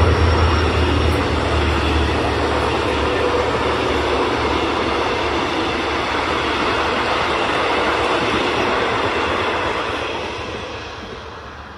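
Passenger coaches rolling past at speed behind a diesel locomotive: a steady rush of wheel and rail noise, with the locomotive's engine drone fading in the first couple of seconds. The sound dies away about ten seconds in as the last coach passes.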